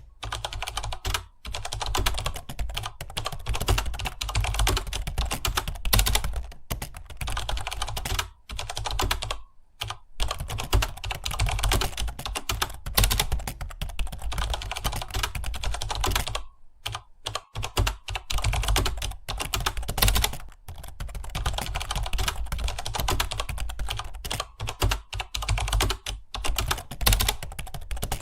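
Fast continuous typing on a computer keyboard, a dense run of key clicks broken by brief pauses of under a second a few times.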